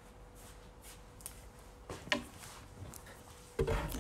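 Faint rustling and light knocks of someone moving about near a phone's microphone, then a heavier thump about three and a half seconds in as the table holding the phone is bumped.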